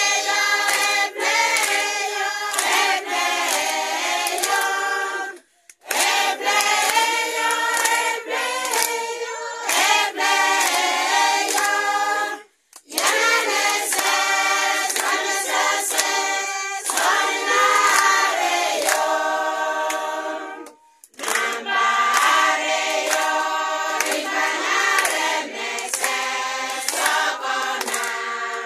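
A congregation singing together without instruments, clapping their hands on the beat. The singing drops out abruptly for under a second three times, about five, twelve and a half and twenty-one seconds in.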